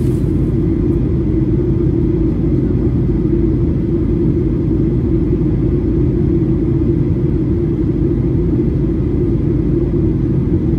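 Steady low drone inside the cabin of a Boeing 737-800 on approach: engine and airflow noise heard from a window seat.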